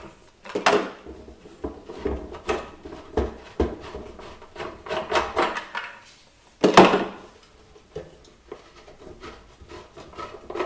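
Handling noise as the legs are taken off an upturned Cadac Carri Chef 2 portable gas barbecue: irregular knocks, clunks and rubbing, with two louder knocks, one about a second in and one about two thirds of the way through.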